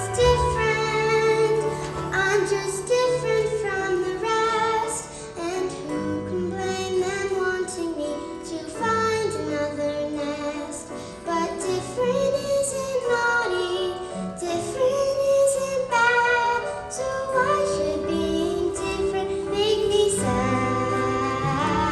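Young children singing a show tune together with instrumental accompaniment.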